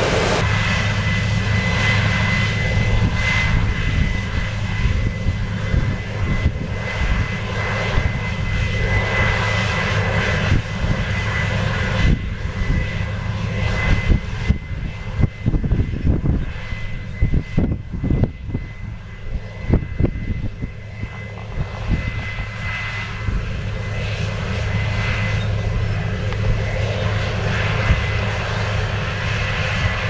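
Case IH 8010 combine harvester running under load while harvesting barley: a steady deep engine drone with a constant high whine over it. Irregular gusts of wind rumble on the microphone in the middle.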